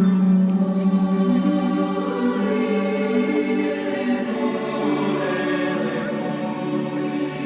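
Mixed choir singing a folk-song medley in several parts, holding sustained chords that change every second or so.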